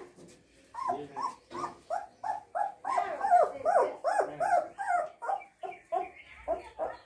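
Kanni puppies yelping and whining as they tussle, a rapid string of short high calls, about three a second, starting about a second in and loudest midway.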